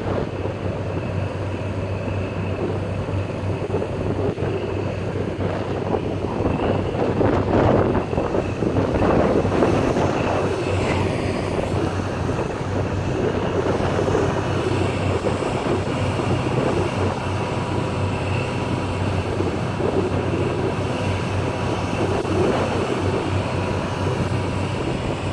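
Steady wind noise over the microphone with a low, even hum underneath.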